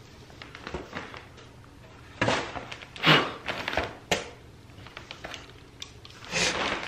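Clear plastic sheeting and cardboard crinkling and rustling as they are handled, in a few short bursts, the loudest about three seconds in.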